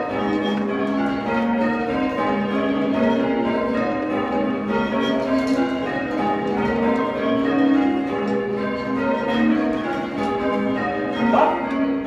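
A ring of six church bells, cast in 1789 by Robert Dalton, being rung in full-circle change ringing. The strokes follow one another in an even, continuous rhythm with a soft tone, and a brief rising squeak is heard near the end.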